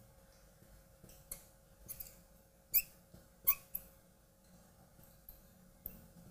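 Felt marker squeaking on a glass lightboard in several short, faint writing strokes, mostly in the first four seconds.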